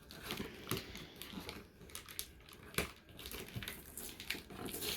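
Cardboard packaging being pried and torn open by hand, without scissors: uneven crinkling and scraping with scattered small clicks and one sharper snap about three seconds in.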